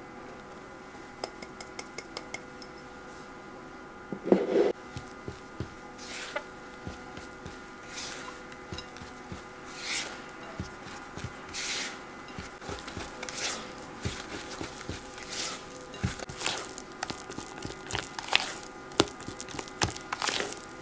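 White silicone spatula mixing butter, sugar and tempura flour in a glass bowl: repeated scraping, squishing strokes against the glass every second or two. Early on there is a quick run of light taps, and about four seconds in a single loud knock.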